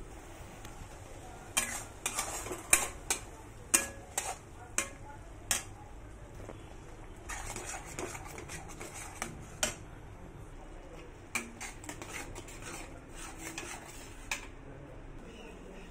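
A spatula stirring thick pav bhaji in a kadai, knocking and scraping against the pan in a run of sharp clacks, loudest in the first six seconds, with more, mostly softer, strokes later on.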